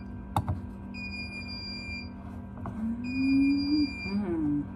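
Incubator alarm beeping: a high, steady electronic beep about a second long, repeating about every two seconds, with two full beeps here. A sharp click comes near the start, and a low rising tone comes in the middle.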